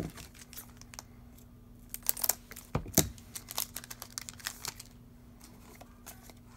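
Foil booster pack wrapper of a Japanese Pokémon card pack crinkling and crackling as it is opened and handled, with a cluster of sharp crackles and a thump about three seconds in. Softer crackles follow as the cards are drawn out.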